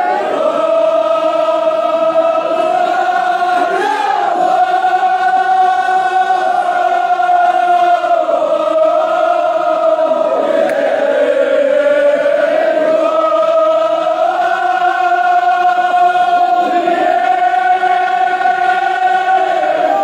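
Men chanting a Kashmiri marsiya, a Muharram elegy, together without instruments, drawing out long held notes that bend slowly in pitch, with short breaths between phrases.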